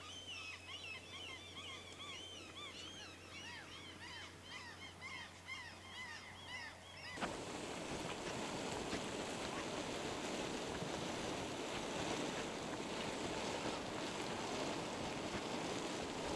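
Many small birds chirping repeatedly over a low steady hum. About seven seconds in, this cuts abruptly to a louder, even rushing noise that runs on.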